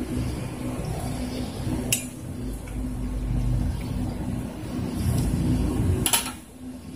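Tableware clinking at a table: a sharp clink about two seconds in and a louder one about six seconds in, as a mug or fork meets a plate. A low steady hum runs underneath.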